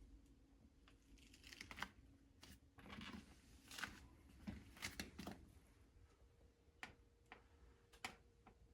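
Faint handling noises: scattered soft rustles and sharp little clicks, busiest in the first half, then a few single ticks.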